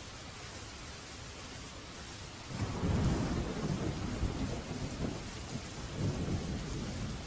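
Steady rain falling, with a thunder rumble breaking in about two and a half seconds in and rolling on in low surges to the end.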